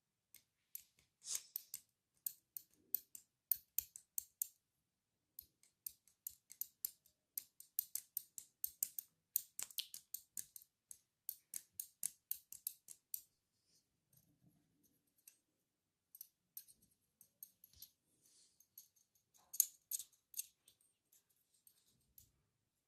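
Runs of faint, crisp clicks close to the microphone, several a second, with a lull about five seconds in and a sparser stretch in the second half before a last quick run.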